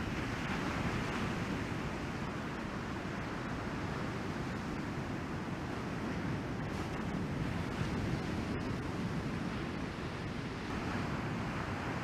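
Ocean surf breaking and washing toward the shore: a steady, even rushing noise.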